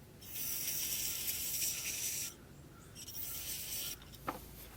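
Squeeze bottle of power steering fluid, nearly empty, being squeezed into a carburetor dashpot, giving a hiss of air and fluid squirting out of its nozzle: one longer squeeze and a weaker, shorter one, then a light click.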